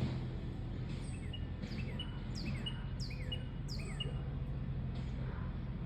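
A songbird calling repeatedly: about six short, quick descending notes, roughly two a second, over a steady low hum.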